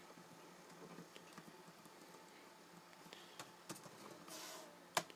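Faint, scattered clicks of laptop keys being pressed, with a brief rustle and a sharper click near the end.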